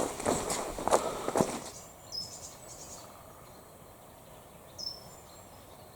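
A hiker's footsteps for the first second and a half, then a quieter stretch of low background hiss with two short high bird chirps, about two and five seconds in.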